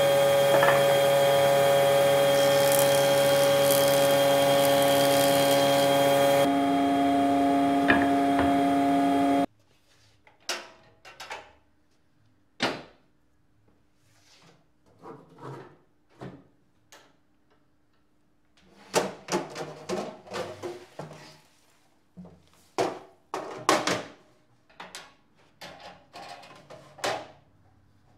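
Woodworking machinery running with a loud steady drone that changes slightly about six seconds in and stops abruptly near ten seconds. After that come scattered clunks and knocks of metal parts as a combination planer-thicknesser is set over from planing to thicknessing, its dust hood brought down.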